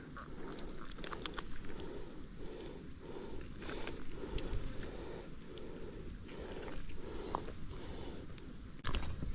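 A steady, high-pitched chorus of insects with a faint low pulsing about twice a second beneath it, and a brief knock and rustle near the end.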